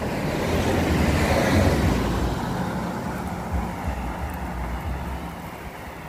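A car passing on the road: tyre and engine noise that is loudest a second or two in, then slowly fades as the car drives away.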